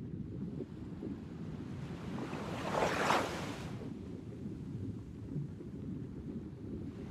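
Steady low rumble of wind and surf, with one rush of noise that swells and fades about three seconds in, like a wave washing in.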